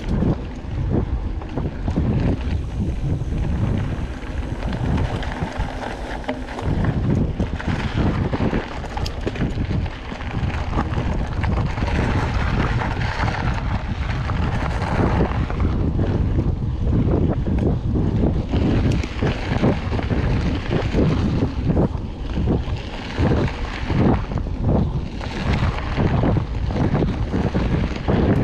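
Mountain bike ridden along a dirt trail: wind buffeting the camera microphone over the tyres rolling on the ground, with frequent short rattles and knocks as the bike goes over bumps.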